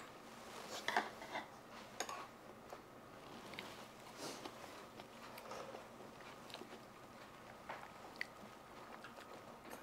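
Quiet eating at a table: faint chewing and slurping with occasional light clicks of metal spoons and chopsticks against earthenware ttukbaegi bowls, the sharpest about a second in.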